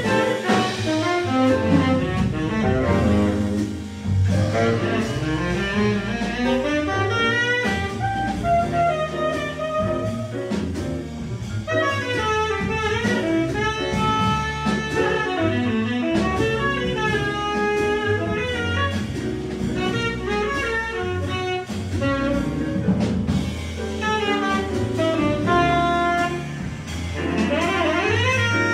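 Live jazz quartet playing: tenor saxophone, piano, double bass and drums, with quick piano runs over a walking double bass line.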